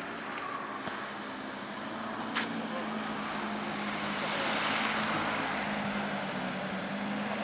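Ski Nautique tow boat's engine running at speed with a steady drone, and a slalom skier's spray hissing. The hiss swells as boat and skier pass close, loudest a little past the middle. One sharp click comes about two seconds in.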